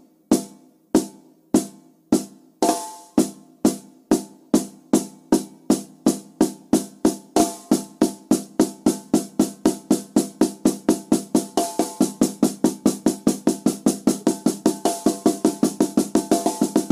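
Drum strokes from a banda recording, single beats that steadily speed up from about one and a half a second to about four or five a second, building toward a drum roll.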